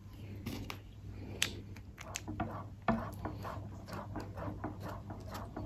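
A spatula stirring a foamy homemade dish soap mixture in a stainless steel bowl, mixing in fragrance: faint scrapes and swishes, sparse at first, then quicker and more regular from about three seconds in.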